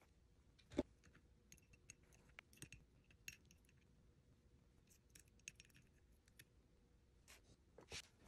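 Faint clicks and light metal taps from hands working grease into an angular contact bearing seated in a steel housing plate. There is one sharper knock about a second in and another smaller one near the end.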